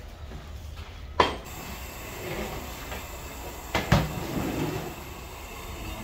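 Two knocks of long metal stirring rods against a large cooking pot, a sharp one about a second in and a heavier, briefly ringing one about three seconds later, over a steady low rumble.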